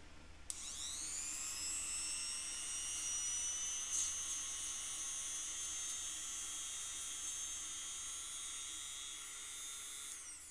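Luxor LX134MO mini rotary tool with a grinding-stone bit switched on with a click about half a second in. Its high whine climbs quickly to full speed and runs steadily without load, then it is switched off near the end and the pitch starts to fall as it spins down.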